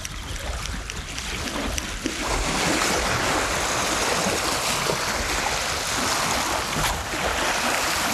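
Storm wind buffeting the microphone over wind-driven waves on the reservoir, a steady low rumble with a broad rushing hiss that swells about two seconds in.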